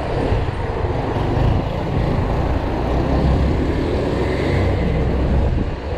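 Steady city street traffic: the engines of a bus and a small truck running close by, heard as an even low rumble.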